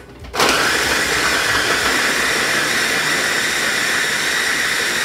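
Electric mini food chopper switching on about half a second in and running steadily, its blade chopping onion, garlic and ginger.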